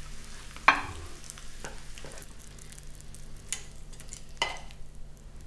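Metal tongs clicking and crisp fried bacon crackling as slices are placed into a buttered bread roll on a plate: a few sharp clicks, the loudest under a second in, over faint crackle.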